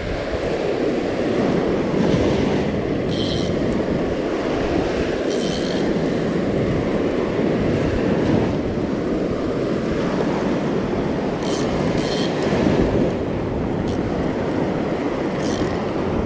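Surf washing up the beach with wind buffeting the microphone, while a spinning reel is cranked to bring in a hooked pompano. A few brief high squeaks stand out above the surf.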